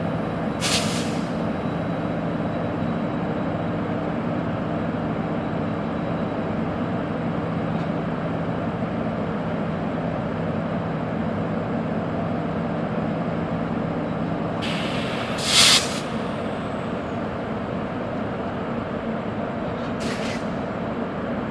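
WAP1 25 kV AC electric locomotive standing with its auxiliary machinery running, a steady hum underneath. Compressed air hisses out three times in short bursts, the longest and loudest about fifteen seconds in, just as the hum drops out.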